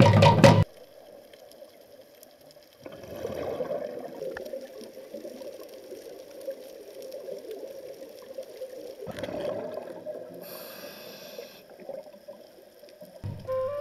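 Scuba diver's breathing through a regulator with exhaled bubbles, heard underwater, in two long stretches starting about three and nine seconds in. Percussive music stops just under a second in, and flute music comes in near the end.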